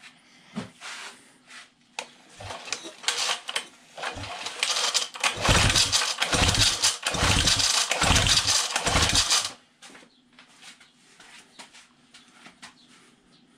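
1978 Johnson 9.9 twin-cylinder two-stroke outboard cranked over by hand on its pull-cord recoil starter for a compression test, in about half a dozen quick pulls in a row without firing, starting about four seconds in. Before the pulls come light clicks of the compression gauge hose being fitted.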